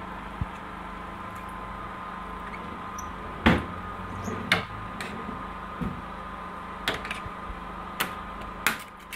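Rubber squeegee being worked down wet window glass, with about six short sharp taps and knocks, the loudest a few seconds in, over a steady hum.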